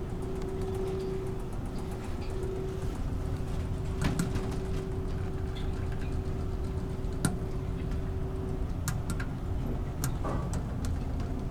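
Steady low drone of a ferry's machinery, with a steady hum that stops about three quarters of the way through, and scattered sharp clicks and knocks.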